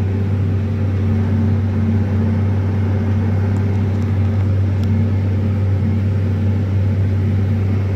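New Holland T6080's six-cylinder diesel engine running steadily under load at about 2000 rpm while pulling a 42-disc harrow through stubble, a constant low drone.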